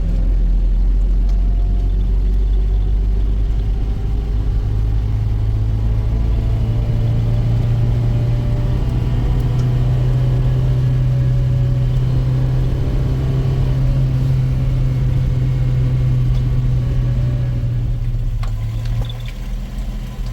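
A motor vehicle's engine running steadily with a low hum. Its pitch rises a little a few seconds in, holds, and drops off near the end.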